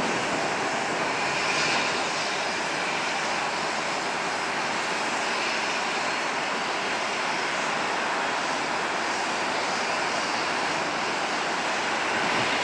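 Jet engines of a Boeing 777-300ER, its GE90 turbofans, running at taxi idle: a steady rushing noise with a faint high whine.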